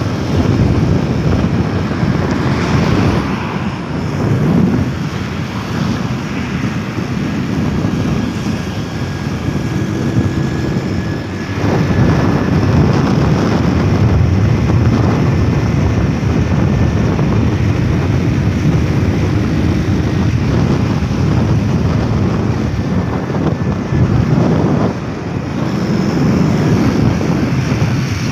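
Wind rushing and buffeting over the microphone of a camera on a moving road vehicle, with road and engine noise underneath; the rumble swells and dips.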